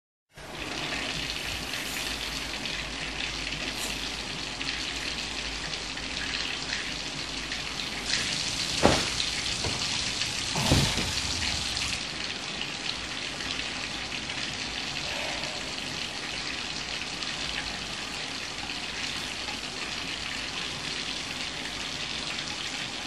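Steady hiss of running water, broken by two brief knocks about nine and eleven seconds in.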